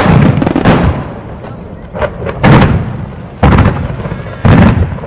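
Fireworks shells bursting in the sky: a series of loud, sudden booms, about one a second, each fading with a short rumble.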